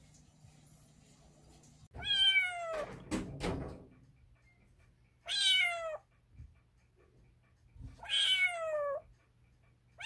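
Calico kitten meowing three times, each call high and falling in pitch, with a short run of knocks just after the first meow.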